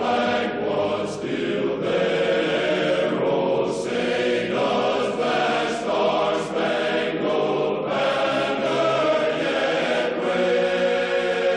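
A choir singing a national anthem in long held chords.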